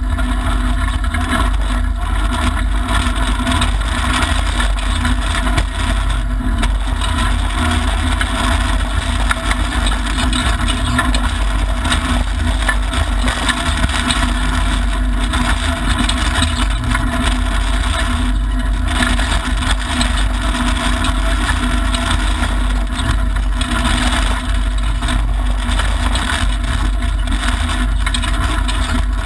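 Mitsubishi Lancer Evolution IX rally car at speed on a gravel stage, heard from inside its roll-caged cabin: its turbocharged four-cylinder engine running with loud, steady tyre and gravel road noise.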